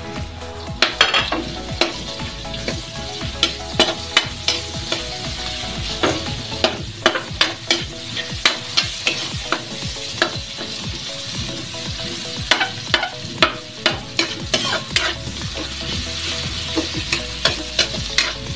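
Onion and garlic sizzling in hot oil in a wok while a spatula stirs them, with frequent irregular clacks and scrapes of the spatula against the pan.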